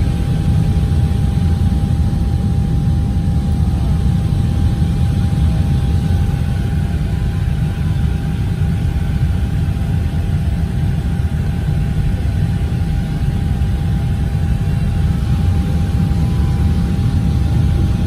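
Airliner cabin noise while circling on approach: a steady low rumble of jet engines and rushing air, with a thin steady whine running through it.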